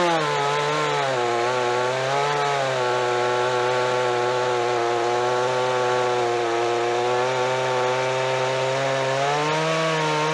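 Scheppach 56cc two-stroke petrol chainsaw at full throttle cutting through a 10-inch softwood log, the engine note held steady under load. The pitch dips slightly as the chain bites in and rises a little near the end.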